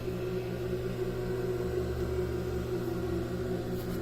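Clutch motor of a Singer 491 D300GA industrial sewing machine running with a steady electric hum and a slight regular pulsing.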